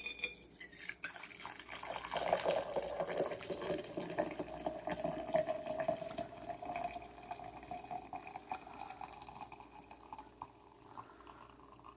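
Brewed coffee pouring from a glass French press into a tumbler in a steady stream. The filling note rises slowly as the tumbler fills, and the pour tapers off near the end.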